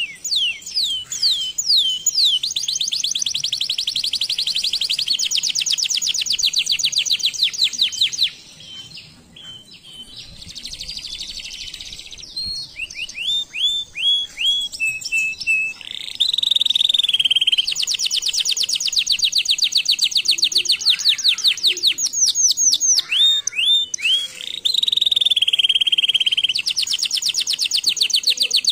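A canary singing long, rapid trills of repeated high notes. About eight seconds in, the song drops away for a few seconds, then resumes with a few separate notes followed by more long trills.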